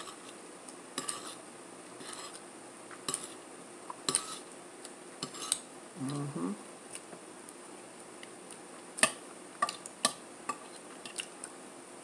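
A metal fork clinking and scraping against a plate while eating, in scattered sharp clicks at irregular intervals. The loudest clink comes about nine seconds in.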